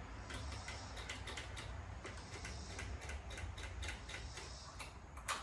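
Light, irregular clicks and taps of a chainsaw's plastic and metal parts being handled as it is taken apart by hand, with one sharper click near the end.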